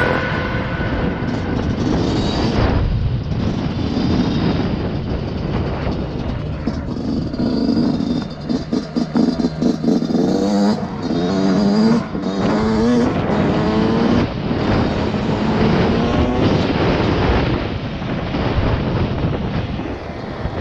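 2020 Yamaha YZ125 two-stroke single-cylinder motocross engine running under load as the bike is ridden, its pitch climbing and dropping with the throttle, with a few brief dips in level.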